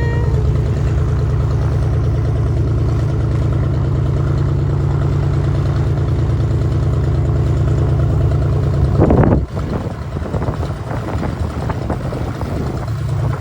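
Steady engine drone, most likely the jump plane's engine. About nine seconds in it breaks off abruptly into a quieter, uneven rushing noise.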